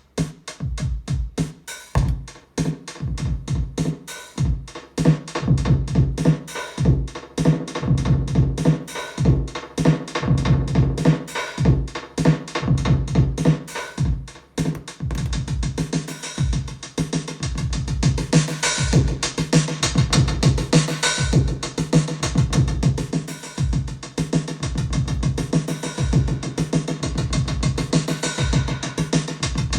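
A simple drum machine groove played through a Binson Echorec 603M valve echo unit, its beats trailed by repeating echoes. The sound grows denser and brighter about halfway through.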